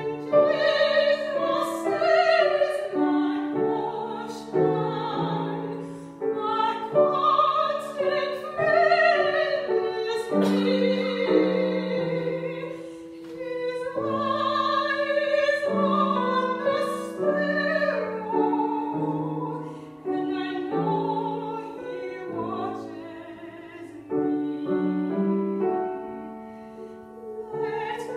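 Operatic soprano singing a classical piece with grand piano accompaniment, in phrases of long held notes with vibrato.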